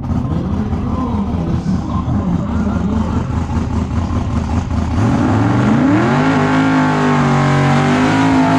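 Drag-race car engine running at low speed as the car approaches, its pitch rising about five seconds in and then holding steady.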